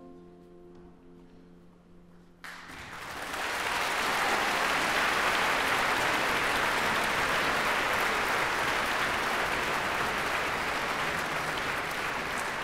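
The last held chord of the harp and orchestra fades away. About two and a half seconds in, the audience breaks into applause, which swells within a second and then goes on steadily.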